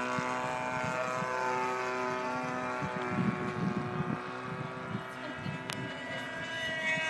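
Radio-control model airplane's two-stroke glow engine whining steadily in flight, its pitch drifting slightly as it moves across the sky and starting to fall near the end as it passes. A single sharp click comes about five and a half seconds in.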